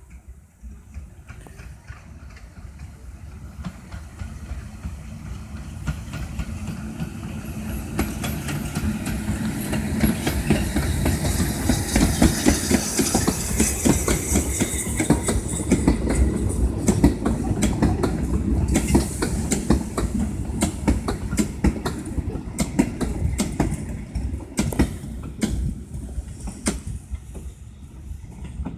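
Large Škoda-built steam locomotive hauling carriages approaches and passes close by: a building rumble with a hiss of steam as the engine goes by, then the carriages' wheels clattering over the rail joints, fading near the end.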